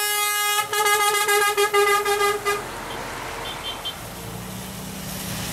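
Scania K410 iB coach's air horn blowing one steady pitch, then a rapid run of short toots, cutting off about two and a half seconds in. After it come tyre hiss on the wet road and the low, steady running of an approaching heavy vehicle's engine.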